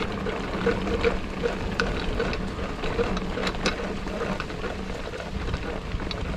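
Mountain bike rolling over a wet, rain-soaked trail: a steady crackling and splashing of tyres on wet ground, with many scattered clicks and rattles.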